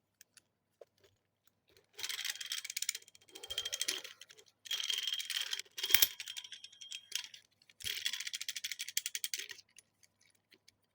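Four bursts of fast, rattling clicks, the longest lasting a couple of seconds, with a sharp knock in the middle of the third.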